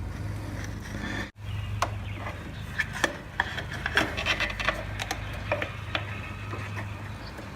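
Light clicks and rubbing of hands handling parts as the rubber gasket is fitted around the oil filter cover, over a steady low hum.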